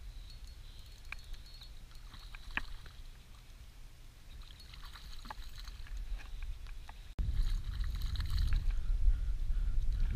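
Small inflatable boat on choppy water: faint water lapping with a few light knocks, then, after a sudden cut about seven seconds in, a louder low rumble.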